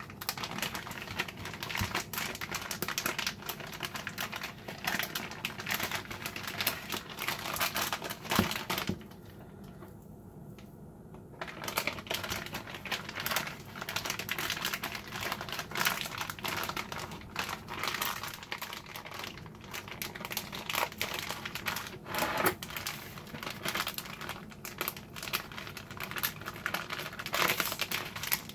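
Plastic zipper-top freezer bag crinkling and rustling as raw beef pieces are pushed into it and the bag is handled, as dense, irregular crackles. There is a pause of about two seconds around nine seconds in.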